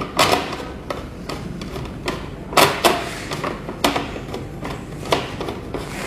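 Irregular sharp clicks and knocks of metal parts and a screwdriver as screws are driven into the back panel of an electronic hotel door lock, with a close pair of louder knocks about halfway through.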